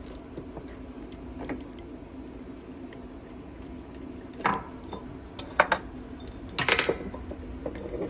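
Metal tools and machine parts clinking and knocking as a wrench and Allen keys work loose the steel die and bracket of an ultrasonic sewing machine. There are scattered sharp clinks, bunched in the second half, over a steady low hum.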